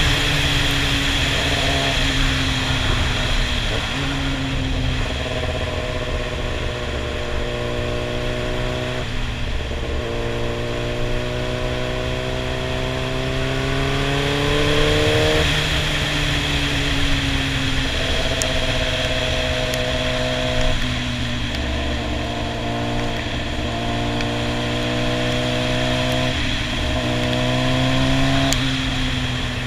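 Sportbike engine running at road speed. Its pitch climbs slowly and then drops sharply several times, over a steady rush of wind and road noise.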